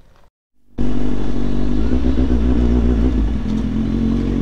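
Kawasaki Z800's inline-four engine with a decat exhaust, running steadily under way, heard close up from the bike. It comes in loud after a brief silent gap near the start.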